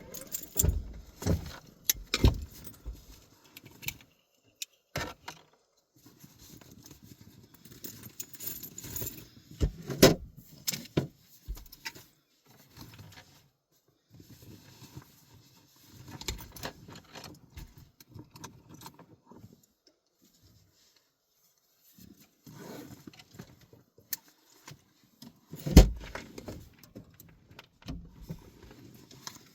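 Scattered clicks, rattles and rustling from someone handling things in a parked car, with keys jangling. There are quiet gaps between the sounds, and a sharp knock near the end is the loudest.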